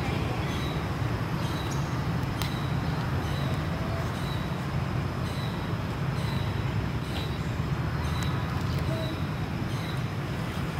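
Steady low rumble of outdoor background noise, with faint short high chirps repeating about every half-second.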